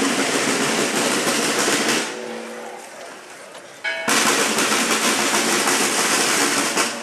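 Marching snare drums playing loud rolls: one roll lasting about two seconds, a pause, then a second roll from about four seconds in that breaks off near the end.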